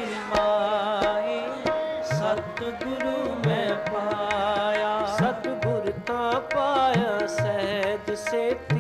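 Sikh kirtan music: harmonium holding steady notes under a wavering melody, over tabla strokes whose bass drum glides up and down in pitch.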